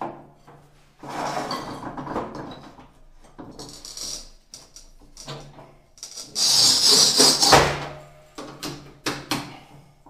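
Walmer MGZ 800 manual tile cutter scoring a small piece of tile: its cutting wheel scrapes along the tile in several strokes, the loudest at about six seconds in. This is followed by a sharp knock and a run of short clicks as the cutter's handle and breaker work on the tile.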